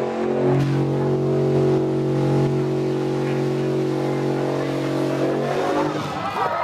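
A rat rod truck's engine held at high, steady revs during a burnout, its rear tyres spinning and smoking. Near the end the revs fall away.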